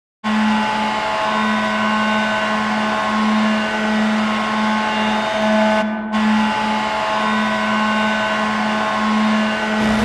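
Ice hockey arena goal horn blowing one long, loud, steady low blast, full of overtones, that dips briefly about six seconds in.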